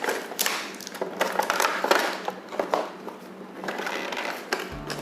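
Headphone box packaging being handled and opened by hand: irregular crackling, crinkling and rustling with small scrapes.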